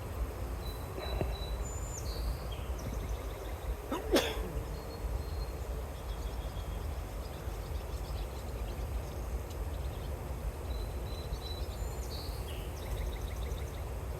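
One sneeze about four seconds in, over a steady low wind rumble on the microphone, with a bird calling twice in high chirps, about two seconds in and again near the end.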